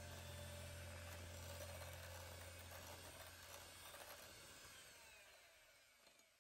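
Electric hand mixer running faintly, its twin beaters whipping cream, fading away over the last few seconds.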